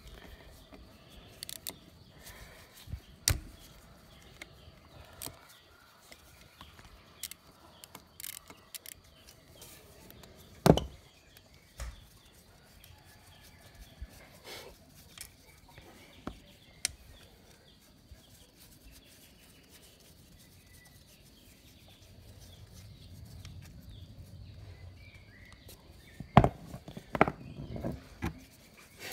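Scattered metallic clicks and knocks of hand tools on the engine as the cam chain tensioner is loosened and taken off a Linhai 300 ATV engine during teardown. The loudest knock comes about eleven seconds in, and a quick cluster of knocks comes near the end.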